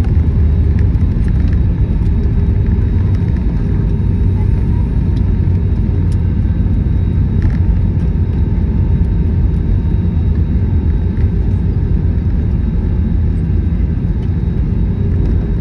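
Steady low rumble heard inside the cabin of an Airbus A321 airliner as it rolls along the runway after landing, the noise of its engines and wheels.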